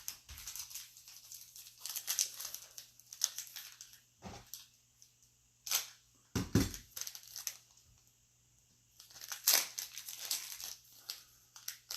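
Basketball trading card packs being torn open and their wrappers crinkled and handled, in irregular rustling bursts, with a couple of dull thumps about four and six and a half seconds in.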